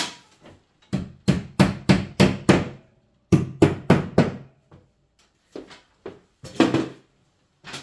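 Hammer tapping winged cavity-wall fixings into holes in a plasterboard wall: a single knock, then quick runs of light blows, about three a second, with pauses between the runs.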